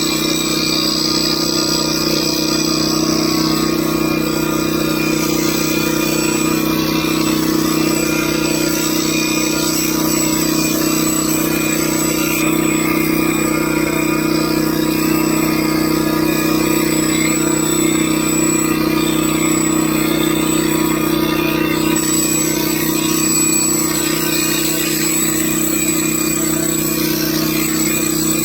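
A steady, unchanging mechanical drone, like a motor running at constant speed, loud throughout.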